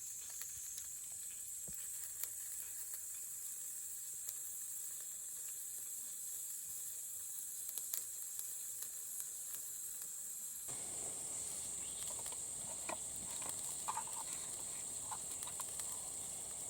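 Chicken thigh sizzling as it fries on a small camp grill: a steady high frying hiss with a few faint pops. The lower background changes abruptly about ten seconds in.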